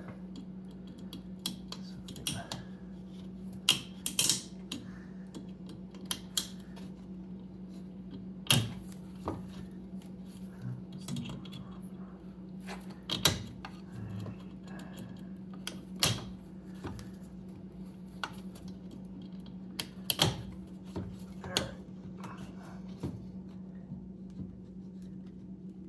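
Irregular clicks and knocks of hard plastic and metal parts being handled and worked into place at a car's coolant reservoir, over a steady low hum.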